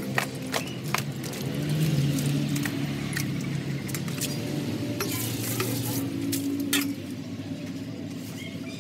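A small metal bowl scooping wet chicken heads out of a plastic basin of water, with scattered sharp knocks and clatter of the bowl against the basin and the heads, over a steady low engine-like hum.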